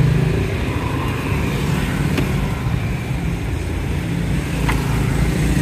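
An engine running steadily with a low, pitched hum that rises and falls slightly, and two short clicks about two and four and a half seconds in.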